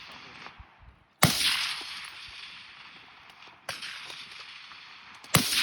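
Three rifle shots from semi-automatic gas-operated rifles: a loud one about a second in, a quieter one past halfway, and another loud one near the end. Each report rings out in a long fading echo.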